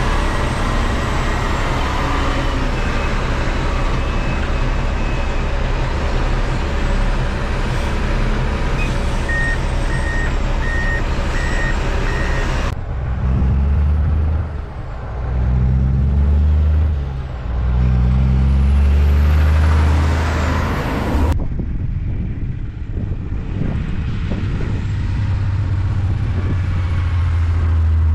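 2007 Kenworth dump truck's diesel engine running, with a reversing beeper sounding five short beeps about ten seconds in. Past the middle the engine note rises and falls several times, then settles into a steady low drone.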